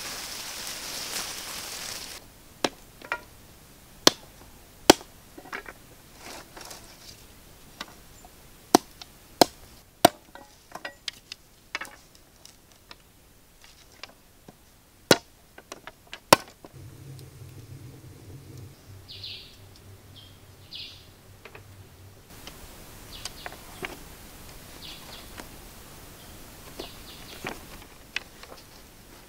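Machete blade chopping into wooden sticks: sharp single chops at irregular intervals, some coming in quick twos and threes, with lighter knocks of sticks being handled between them.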